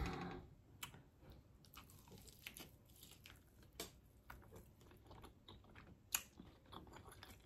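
Faint chewing of food close to the microphone: irregular small wet mouth clicks, with a few sharper clicks, one of them about six seconds in.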